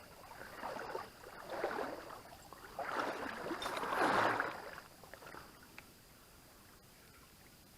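Creek water splashing and sloshing in several noisy bursts, loudest about four seconds in, then only a faint steady hiss for the last few seconds.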